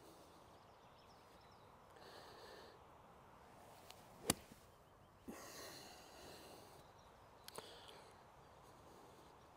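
A golf wedge (a 50-degree Callaway Mack Daddy Jaws gap wedge) striking the ball once, a single sharp crack about four seconds in, followed about a second later by a softer thump. The shot is struck fat, the club digging up a chunk of turf.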